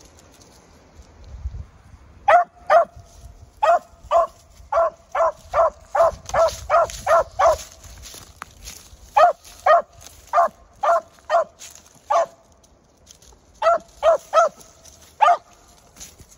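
Young beagle hound giving voice on a rabbit's track: short, sharp chop barks in runs of two or three a second, starting about two seconds in and broken by brief pauses.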